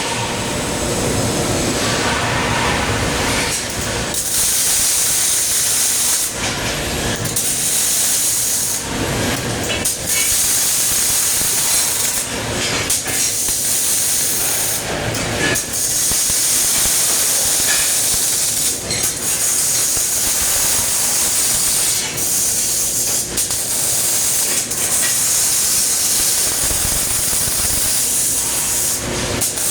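Robotic MIG welding arc hissing and crackling steadily, stopping briefly several times between welds.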